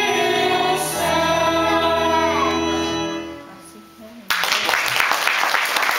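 A group of children singing a song together, holding a last note that fades out about three and a half seconds in. A moment later an audience breaks into loud applause.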